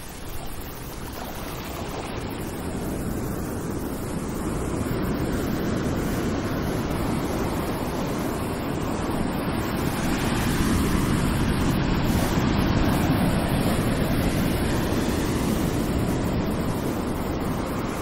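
Ocean waves: a continuous rushing surf that swells slowly over the first ten seconds or so and eases a little near the end.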